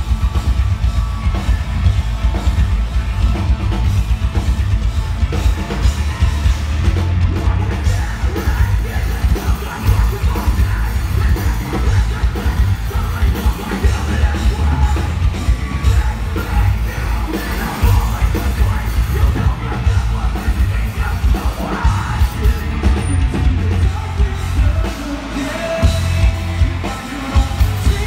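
Live metalcore band playing loud, with heavy drums and yelled vocals.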